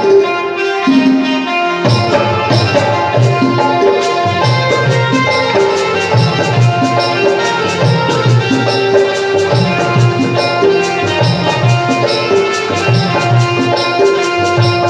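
Instrumental Indian devotional tune (dhun) played over a sound system: a sustained melody line over a fast, steady drum rhythm. The low drum beat drops out briefly at the start and comes back about two seconds in.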